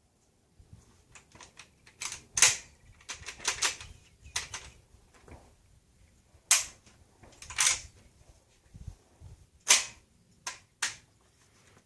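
Sharp metallic clicks and clacks, some in a quick cluster, from a 12-gauge semi-automatic Escort Magnum shotgun's action being worked and handled. The gun is failing to fire, which the owner puts down to a newly fitted O-ring, probably.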